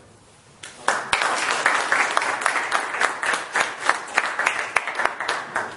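A small audience applauding: many people clapping at once. It starts about a second in and stops just before the end.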